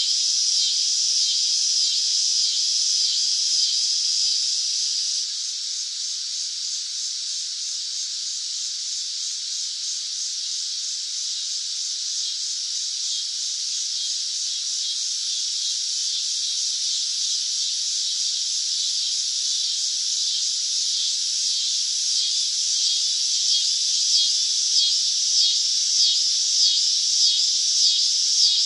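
Cicadas buzzing in a dense, steady, high-pitched drone. It drops a little about five seconds in, then slowly swells again, and near the end it throbs in regular pulses about once or twice a second.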